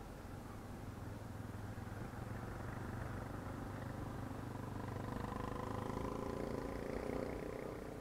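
Motorcycle engine running while riding in traffic, with road noise. About halfway through, the engine sound grows louder and higher, then eases near the end.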